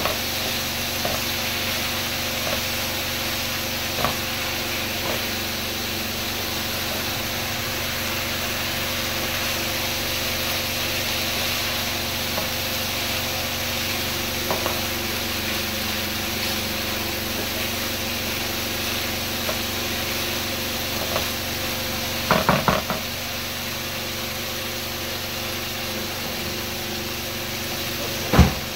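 Chicken and macaroni sizzling in a frying pan as a wooden spatula stirs and scrapes through it, with a steady hiss and occasional small clicks. The spatula knocks against the pan a few times in a quick cluster about three-quarters through, and once more, more sharply, near the end.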